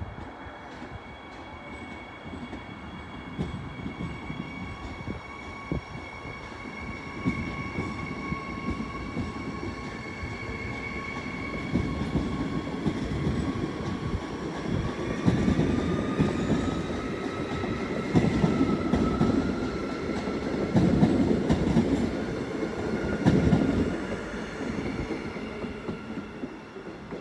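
Queensland Rail train running on the track: a rumble of wheels and running gear under a steady whine. About halfway through, the whine climbs slowly in pitch while the rumble grows louder, then the rumble eases near the end.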